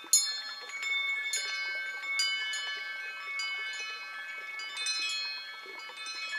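Wind chimes ringing: irregular, overlapping strikes, each tone ringing on, with the loudest strike just after the start.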